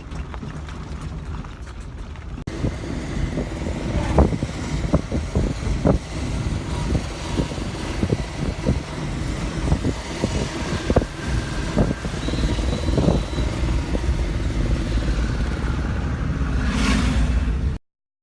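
A vehicle running with a loud, steady low rumble and many irregular knocks and rattles. It cuts off abruptly near the end.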